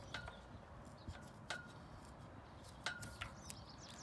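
Cutters snipping off excess umbrella cord: a handful of faint, sharp clicks spread over a few seconds, some followed by a short ringing note.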